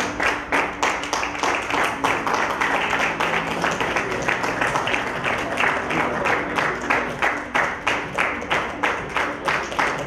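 Crowd clapping steadily in time, about three claps a second, with faint music underneath.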